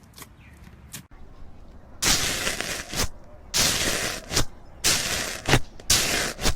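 Slime being squished and pressed by hand: after about two seconds of near quiet with a few faint clicks, four loud squelching bursts come about a second apart, each full of sharp popping crackles.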